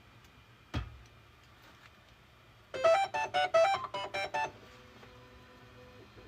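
Bambu Lab A1 Mini 3D printer playing its start-of-print melody on its stepper motors, a quick run of about ten beeping notes, after a single thump about a second in. The notes give way to a faint steady hum as the motors move.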